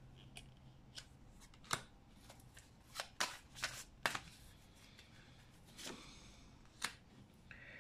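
Tarot cards being drawn from the deck and laid down on the table: a string of about ten short, faint card snaps and taps, bunched in the middle, with soft rustling between.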